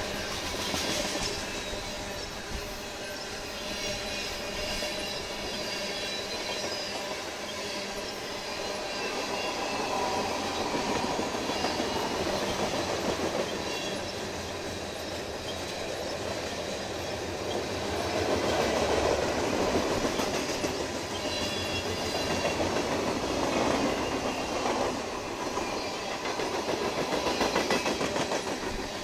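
Freight train rolling past: a steady rumble and clatter of steel wheels on the rails, with a faint high wheel squeal now and then.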